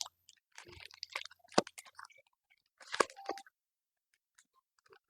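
Plastic shrink-wrap crinkling and crackling as it is pulled off a boxed card collection, in two bursts with a few sharp snaps.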